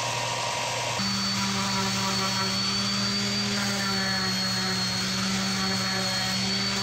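Electric sanders running on a wooden spatula. For about the first second a benchtop belt sander runs as a steady hiss. It then gives way abruptly to a handheld random orbital sander, a steady motor hum with a high whine.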